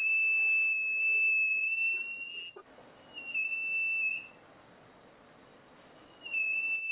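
Continuity-tester buzzer of a homemade multimeter sounding a steady high-pitched beep through a potentiometer. It cuts in and out as the potentiometer is turned: about two and a half seconds of tone, a second-long beep in the middle, and the tone returning near the end. This shows the potentiometer is working.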